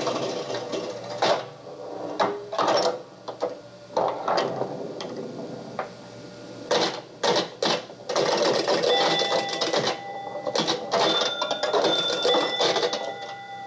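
A recorded sound effect played back from cassette on a 1976 Sony TC-520CS: irregular mechanical clattering and clicking, with short steady ringing tones coming and going from about eight seconds in.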